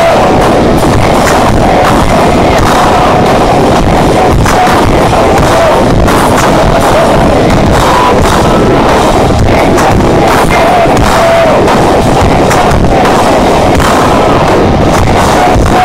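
Live rock band playing loud: drum kit, electric guitars and bass together, continuous with no breaks. The recording is overloaded and distorted, the sound smeared into a harsh wall.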